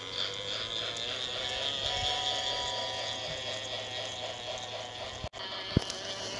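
Battery-powered toy Polar Express train's motor and gears whirring steadily as it runs on plastic track. The sound drops out briefly a little after five seconds, then a sharp click.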